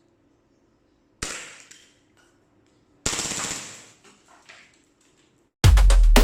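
KJW KP-13F gas blowback airsoft pistol firing two short full-auto bursts, each starting sharply and tailing off within about a second. Loud music with a steady beat starts near the end.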